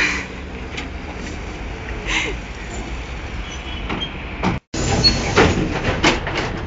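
Articulated trolleybus moving off amid steady street noise. After a brief dropout about two-thirds in, rattling and knocking from inside a moving trolleybus.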